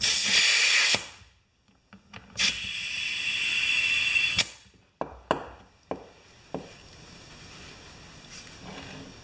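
Compressed air hissing through an air chuck into a wheelbarrow tire in two bursts, one about a second long at the start and a longer one about two seconds later, followed by a few sharp clicks and knocks.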